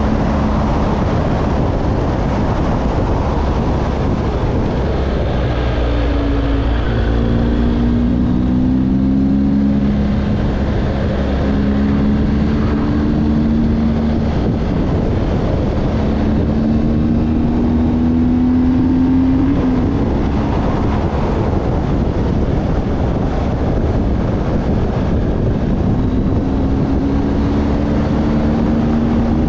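Wind rushing over the microphone of a moving vehicle, with the vehicle's engine note underneath climbing in pitch several times as it accelerates and dropping back between climbs.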